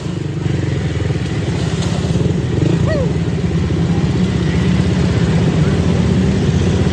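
ATV engine running steadily with a dense, fast low chug.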